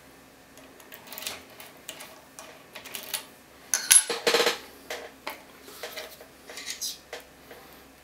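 Small metal lockpicking tools clinking and rattling as they are handled, in irregular clicks with a louder cluster about halfway through.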